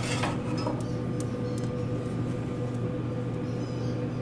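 Steady electric hum of the Yoder YS640 pellet smoker's combustion fan running, with a few faint light clicks.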